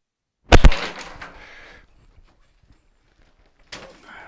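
Pride Go-Go folding mobility scooter being tipped up on end on a steel lift platform: two sharp knocks in quick succession, then a short rattle of its frame and parts, and one more knock near the end.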